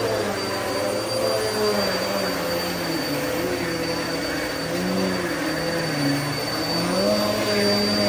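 Upright vacuum cleaner running while it is pushed over carpet: a steady high motor whine over the rush of air, with a lower hum that wavers up and down in pitch.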